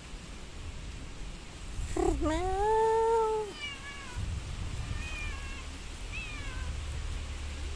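A cat meows once about two seconds in, a single long drawn-out meow that rises, holds its pitch and falls away.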